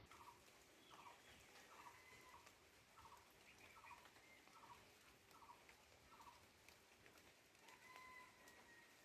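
Faint, steady hiss of rain, with an animal or bird calling in short repeated notes, about one every two-thirds of a second for six seconds, then one longer held call near the end.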